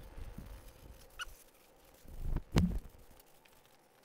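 Workshop handling noises: dull knocks and rubbing as a gloved hand works close by under the machine, the loudest a dull thump about two and a half seconds in, with a faint click a little after one second.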